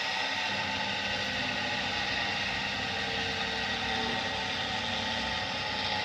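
Viessmann Vitodens 100 condensing gas boiler running: a steady hum of the combustion fan and burner firing, left burning to dry out condensate that had collected in the fan and gas valve.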